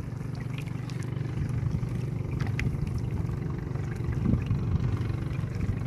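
Small boat engine idling with a steady low hum, with a few faint clicks over it.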